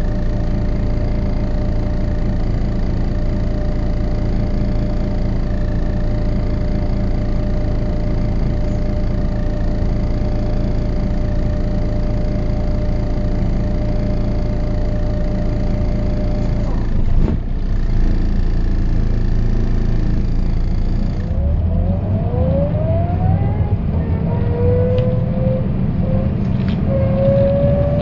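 Mercedes-Benz O408 city bus with an OM447hLA turbo diesel running steadily, with a thin constant whine over it. After a brief break about 17 seconds in, a hub-reduction axle whine rises in pitch again and again through the last several seconds as the bus gathers speed.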